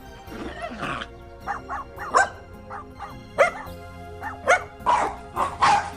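A dog barking loudly and repeatedly, about eight sharp barks in irregular bursts, over steady background music.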